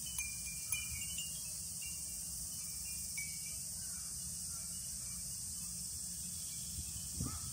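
Steady high-pitched drone of insects over outdoor background noise, with a crow starting to caw near the end.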